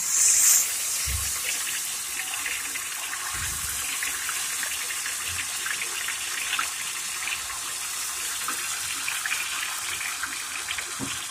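Ghevar batter being poured in a thin stream into hot desi ghee, the ghee sizzling with a steady hiss full of small crackles. The hiss is louder for the first half second.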